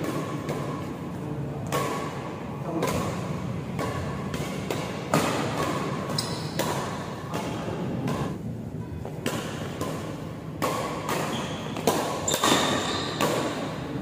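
Badminton rackets hitting a shuttlecock in a fast doubles rally: sharp, irregular hits that echo in a large hall. Short high squeaks from shoes on the court mat come in now and then.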